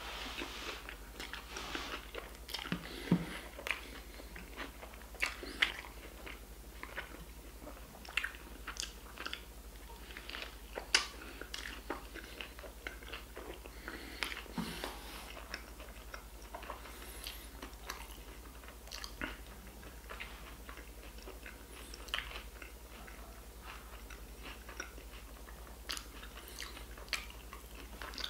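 A person biting and chewing a bacon burger: irregular short mouth smacks and crunches, with a steady low hum underneath.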